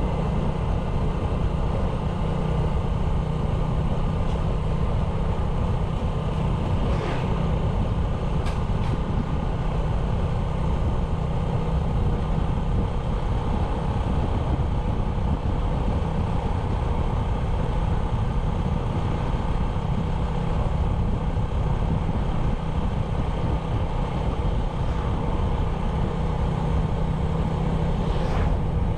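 Single-cylinder 97cc motorbike engine running at a steady cruise while riding, a constant drone over a low rumble.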